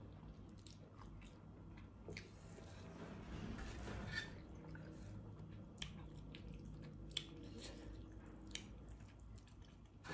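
A person chewing a mouthful of spicy instant noodles close to the microphone, with scattered small wet clicks.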